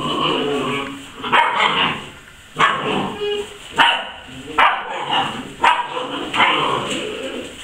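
Basset hound puppy barking, about six short, sharp barks spaced roughly a second apart.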